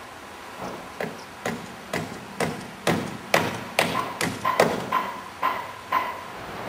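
Hammer blows at a steady pace of about two a second, the later ones ringing briefly with a clear tone.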